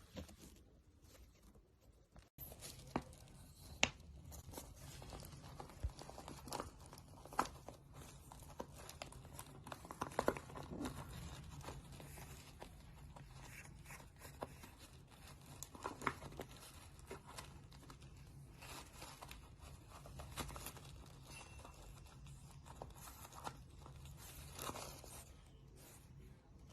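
Asian small-clawed otter rummaging and playing: irregular rustling, crinkling and scraping with scattered sharp clicks.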